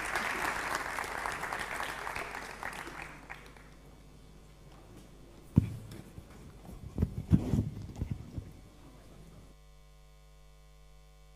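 Audience applauding, dying away after about three seconds. A few dull low knocks follow around the middle, and near the end a faint steady tone sets in.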